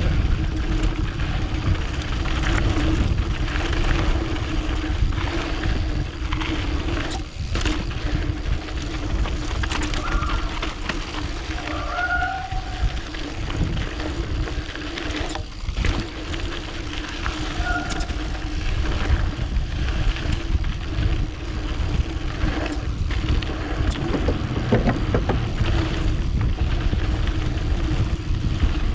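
Wind rushing over an action camera's microphone as a mountain bike descends a dirt trail, with tyres rolling and the bike rattling over the ground. There are a couple of short squeaks midway.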